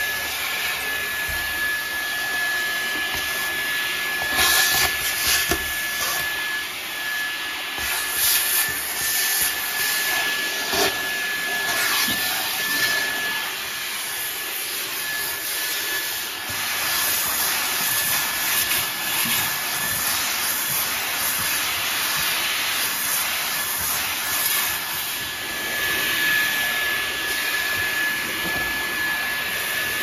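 Levoit cordless pet-hair stick vacuum running continuously as it is drawn along the floor: a steady rush of air with a high motor whine that dips briefly near the middle, and a few short clicks.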